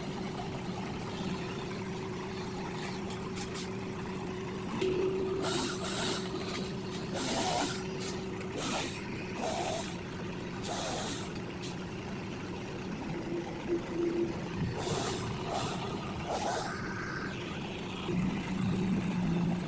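A steady engine hum at a constant pitch, with several short hisses breaking in about five seconds in, around eight to eleven seconds in, and again near the end.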